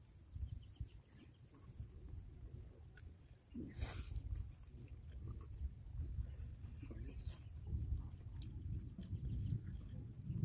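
Insects chirping in a steady high-pitched trill that pulses about three times a second, over a low rumble, with a brief noise about four seconds in.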